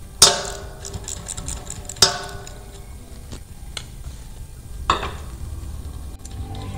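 Metal clinks from the shaft fitting and lock pin of a ceiling fan's motor being handled and taken apart: three sharp clinks that ring briefly, with a few lighter ticks between.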